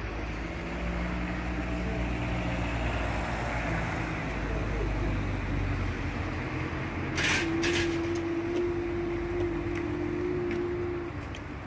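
Low, steady rumble of road traffic and running engines. About seven seconds in come a few sharp clicks, followed by a single steady hum held for about three and a half seconds.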